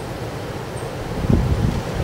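Strong wind blowing and buffeting the microphone with low rumbling, and a harder gust hitting about halfway through.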